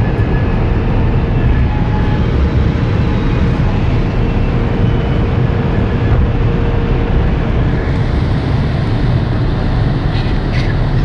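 Inside the cabin of an Audi A4 1.9 TDI at about 255 km/h: a loud, steady rush of wind and road noise over the drone of its four-cylinder turbodiesel engine. There are a few clicks near the end.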